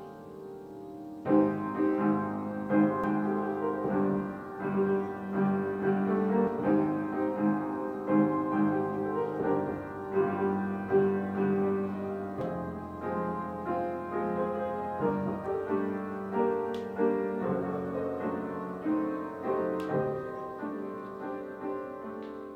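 Piano playing a slow piece of chords and melody notes, starting about a second in and fading near the end.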